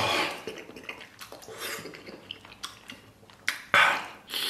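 Close-up sounds of a person biting and chewing a piece of fatty braised pork belly: scattered wet mouth clicks and smacks, with a much louder bite near the end.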